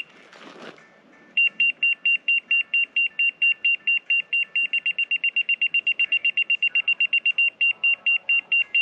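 Laser level receiver on a grade rod beeping rapidly, a high electronic beep about five times a second that quickens about halfway through. It is reading the rotating laser's beam while the top of a footer form is checked for grade; the fast beeping means the receiver is off the on-grade mark.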